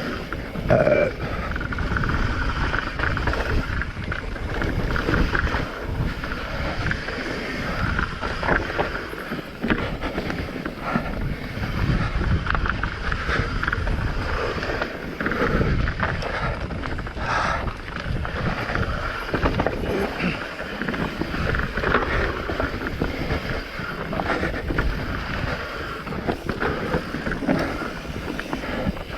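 Wind rushing over the camera microphone together with the steady rough rolling and rattling of a mountain bike descending a rough trail at speed.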